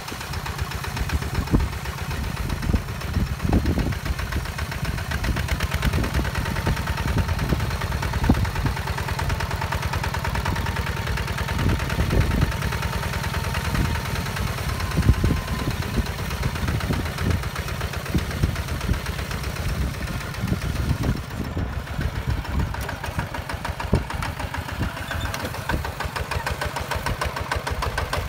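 Two-wheel walking tractor's single-cylinder diesel engine chugging steadily under load as it pulls a disc plough through sandy soil, with occasional louder thumps.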